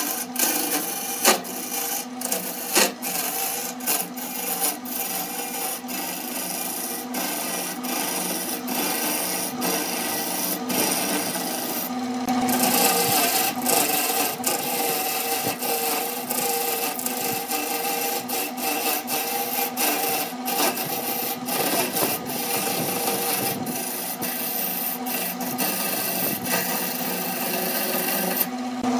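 Turning tool cutting into a spinning wood blank on a BURT wood lathe: a continuous rough scraping of the steel against the wood, over the steady hum of the lathe's motor.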